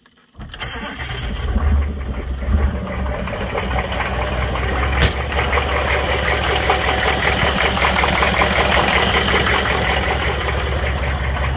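GM 6.5-litre V8 diesel cranking and catching within the first two seconds, then idling with an uneven beat; the engine is misfiring. A single sharp click about five seconds in.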